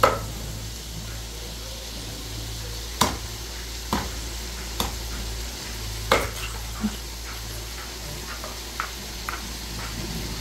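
Meat cleaver chopping cooked whole chicken on a thick round wooden chopping block: several sharp chops, about one a second in the middle, with lighter taps near the end, over a steady low hum.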